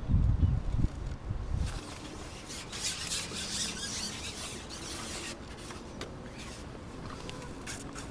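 Match-fishing pole being shipped back toward the bank, its sections rubbing and sliding with a rasping hiss from about two seconds in. Low rumbling in the first two seconds.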